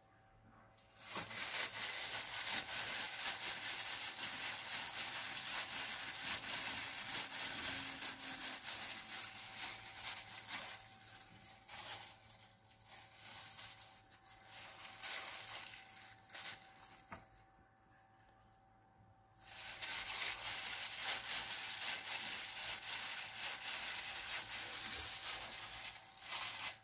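Rustling and crinkling of disposable plastic food-prep gloves as hands shape minced meat into balls. It stops for a couple of seconds in the middle, then starts again.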